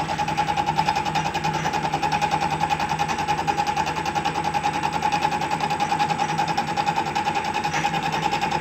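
WM210V benchtop metal lathe running slowly under power feed: a steady whine with a fast, even pulsing from the turning leadscrew and change gears, as the boring tool takes an interrupted cut in cast iron.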